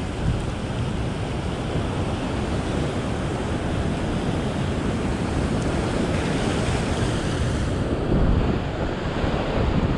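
Ocean surf breaking against a sandstone rock shelf and washing over it, a steady rushing with low rumble, and a larger surge about eight seconds in. Wind buffets the microphone.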